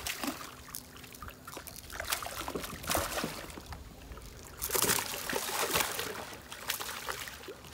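Water trickling and sloshing beside a small boat, with scattered small splashes; the loudest splash comes a little before five seconds in.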